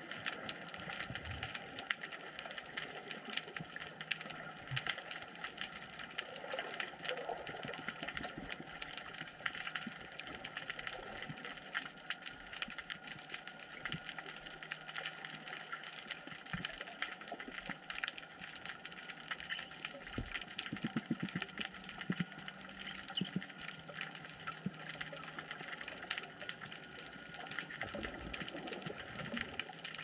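Underwater kelp-forest ambience picked up by the camera: a steady crackle of countless tiny clicks, with a few dull low thumps about two-thirds of the way through and again near the end.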